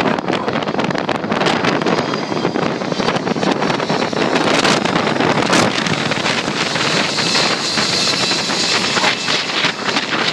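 Wind buffeting the microphone over a steady rushing noise. A thin high whine comes in during the second half.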